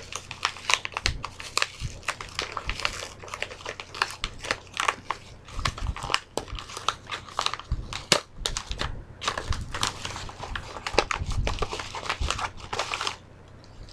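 A package being opened by hand: packaging crinkling and crackling in a dense run of quick, irregular rustles and snaps.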